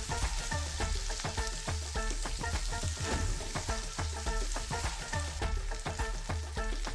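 Onions, garlic and ginger sizzling steadily as they fry in hot oil in a pan.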